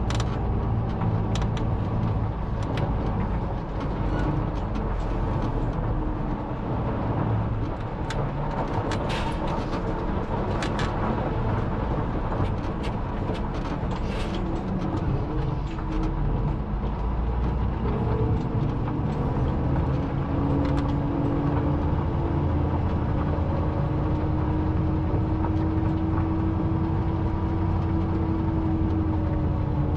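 Scania R580 truck's V8 diesel engine running steadily at low speed, with scattered knocks and clatters through the first half. A slowly rising tone joins in over the second half.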